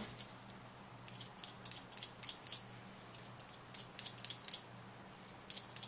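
Barber's scissors snipping hair in scissor-over-comb cutting: quick runs of crisp snips with short pauses between them.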